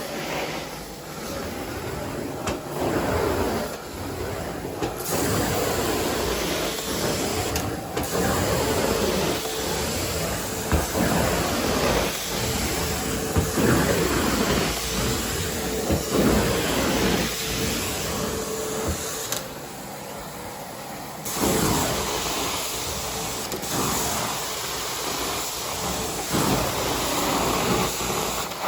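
Carpet-cleaning vacuum suction running with a steady whine. The hiss drops away for a couple of seconds about two-thirds of the way through, then comes back.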